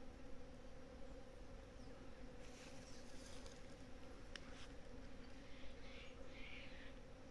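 Many bees buzzing together as they forage on mutambo blossoms: a steady low hum. About two and a half seconds in there is a brief rustling hiss, a single sharp click a little after four seconds, and a few faint higher calls near the end.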